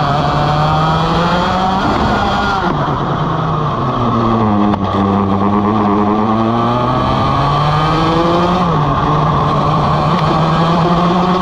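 Vortex ROK GP 125cc two-stroke kart engine under full racing load, heard from on board: its pitch climbs along a straight, drops sharply as the driver brakes about two and a half seconds in, then winds back up out of the corner. It drops again near nine seconds and climbs once more.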